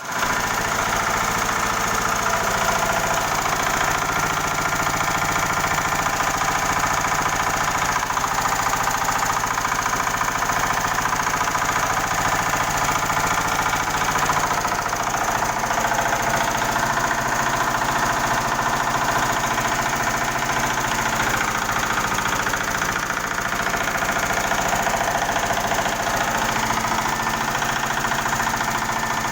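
Goods-lifting hoist machine running steadily.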